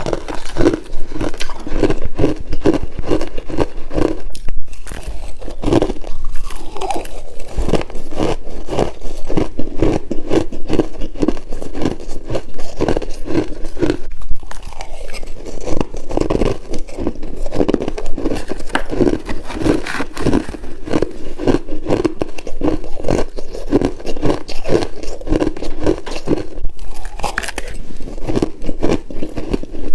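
Freezer frost being bitten and chewed close to the microphone: rapid, regular crunching that keeps up throughout.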